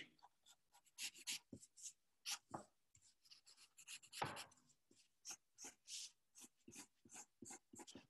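Faint scratching of a pencil on paper in many short, irregular strokes as lines are sketched, the longest and loudest stroke about four seconds in.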